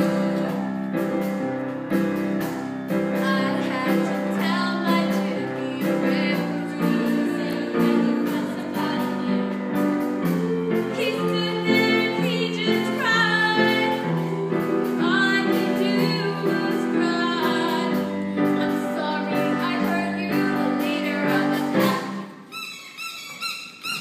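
Song with a steady beat and singing. About 22 seconds in the song stops and gives way to a quieter, high-pitched sound.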